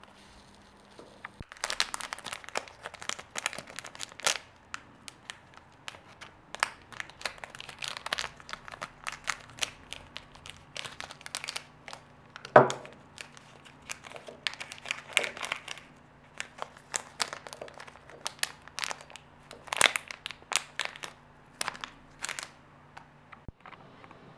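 Small plastic bags crinkling and crackling as they are handled, in dense irregular bursts, with one louder knock about halfway through.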